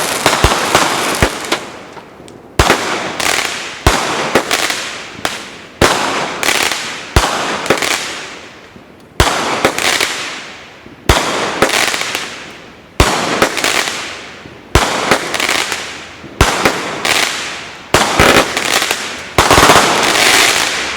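A 100-shot, 500-gram consumer fireworks cake firing. A quick run of cracks comes first, then a sharp report about every second, each break trailing off in a fading crackle.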